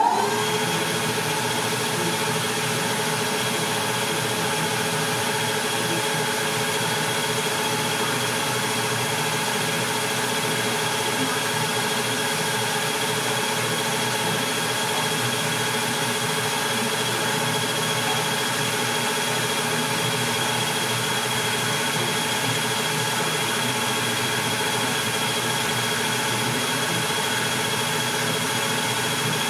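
Metal lathe running at a steady speed with its four-jaw chuck spinning: an even mechanical hum with a constant high tone.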